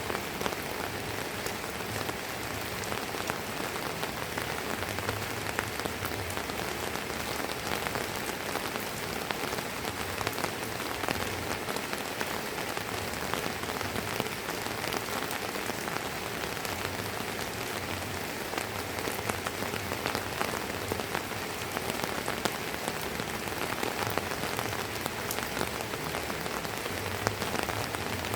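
Steady drizzling rain falling on hard surfaces, a dense even patter of many small drops with occasional sharper drip ticks.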